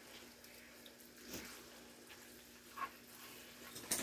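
Faint sounds of a spoon stirring ground beef and corn in a skillet, a soft scrape now and then, then a quick run of scraping strokes near the end. A faint steady hum lies underneath.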